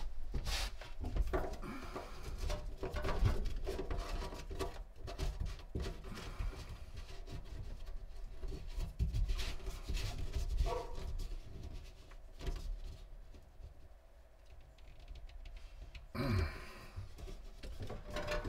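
Plastic drain pipe fittings being handled and fitted together, with a slip nut turned hand-tight: quiet, scattered clicks, scrapes and rubbing.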